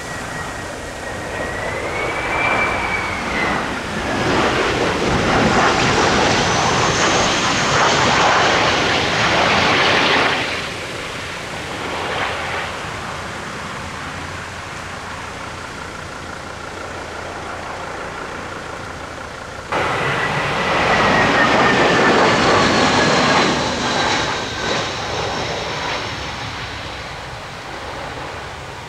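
Airliner engines passing close: a broad engine noise with a high whine that slides in pitch. It cuts off abruptly about a third of the way in, leaving a quieter steady noise, and a second airliner's engines start up suddenly about two-thirds through, with a whine that falls slowly.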